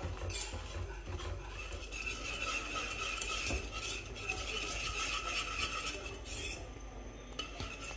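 A wire whisk is stirring pastry cream in a coated pot, its wires scraping and tapping against the pot in quick, continuous strokes as the cream cooks and thickens.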